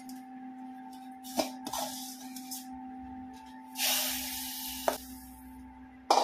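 A steel spoon scraping and clinking against steel pans as ghee-roasted vermicelli is scooped from the kadhai into a pot of hot milk. A hiss rises twice, the louder one lasting about a second from just before the four-second mark, as the vermicelli goes into the hot milk.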